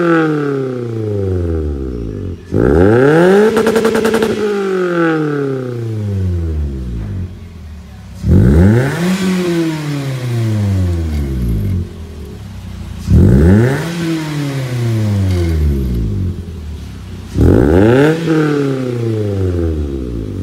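Toyota Vios four-cylinder engine free-revving through a custom valved (valvetronic) exhaust: four quick blips, each rising sharply in pitch and falling back to idle, about every four to five seconds, the first held at the top for a second or so.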